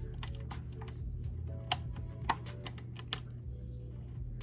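Irregular small clicks and taps of plastic and metal sewing machine parts being handled around the needle and bobbin area, with a few sharper clicks in the middle, over a low steady hum.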